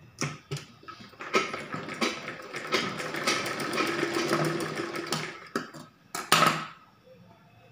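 Domestic sewing machine stitching through a strip of cloth: a fast, even clatter of the needle starting about a second in and stopping about five seconds in. A short, loud burst of noise follows near the end.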